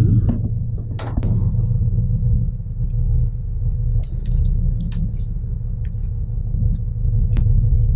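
Fishing boat's engine running steadily with a low rumble and hum, with a few sharp clicks and knocks over it.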